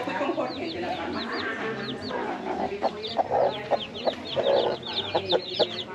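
Domestic chickens clucking in a coop, the clucks coming thick and fast from about three seconds in, over a steady stream of high, quick chirps.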